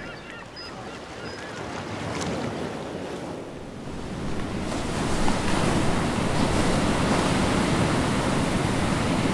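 Ocean waves washing and surging, a steady rushing noise that grows louder about halfway through.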